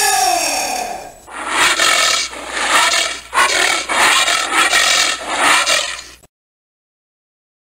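Giant anteater calls: one cry that rises and falls in pitch, then a run of rough, grating calls, cutting off suddenly about six seconds in.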